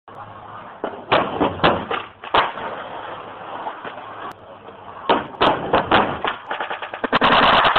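Skateboard on a homemade wooden ledge: sharp clacks and knocks of the board, then a loud scraping grind along the ledge near the end.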